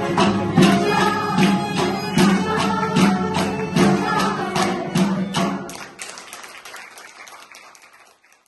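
A group of girls singing a patriotic song in unison to accordion accompaniment and a steady percussion beat, about one beat every 0.8 seconds. The music ends about six seconds in and its sound dies away.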